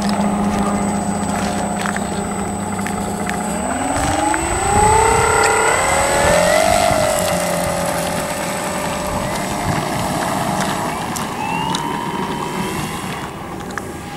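Electric motor and propeller of a large foam RC P-47 Thunderbolt warbird (Starmax XXL) running steadily at low throttle, then whining up in pitch in steps as it throttles up for the takeoff run, and rising again near the end as the plane lifts off.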